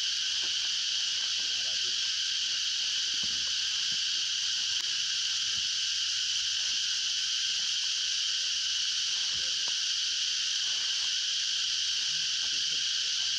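A dense, steady, high-pitched chorus of insects.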